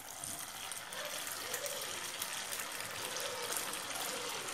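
Battered cauliflower deep-frying in hot sunflower oil: a steady hiss with fine crackling that grows a little louder about a second in as more pieces go into the oil.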